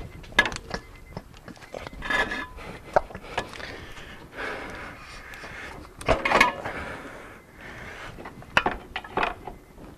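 Irregular metal clinks, knocks and scrapes as a pry bar and other hand tools are worked against a car's front suspension parts, with short clusters of clatter around two seconds in, about six seconds in and near the end.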